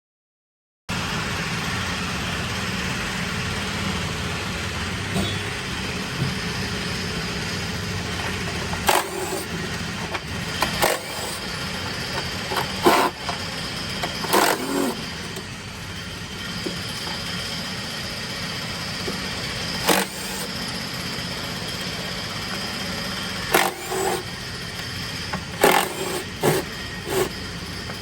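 Mack MP8 common-rail diesel engine running steadily, with sharp knocks and clicks cutting in every few seconds.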